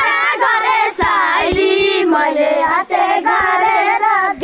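A group of boys singing a song together in chorus, in long held notes, with short breaks between lines about a second in and near the three-second mark.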